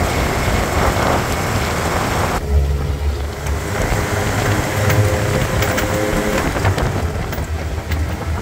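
1955 Land Rover Series I's four-cylinder engine and road noise while driving open-topped, with wind rushing over the microphone. About two and a half seconds in, the wind hiss drops away, leaving a low engine drone with a faint steady whine over it for a few seconds.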